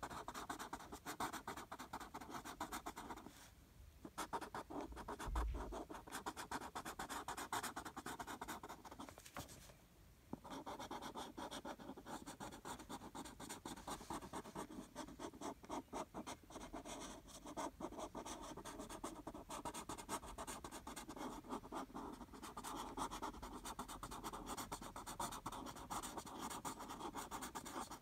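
Felt-tip marker scribbling on paper in quick back-and-forth strokes as it colours in, with two short pauses, about four seconds in and about ten seconds in.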